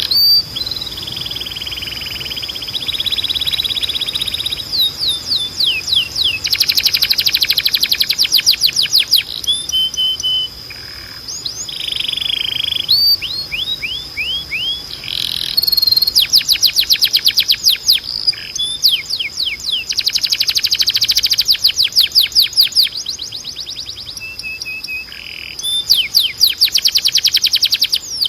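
Timbrado canary singing: phrases of rapid, steeply falling repeated notes and trills that change every few seconds, over a thin steady high tone.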